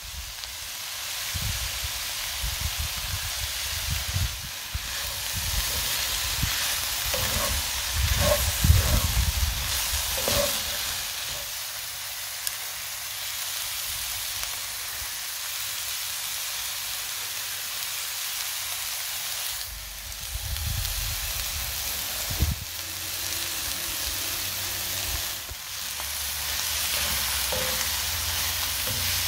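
Broccoli and chicken sizzling steadily as they fry in a hot pan, with a low thump now and then.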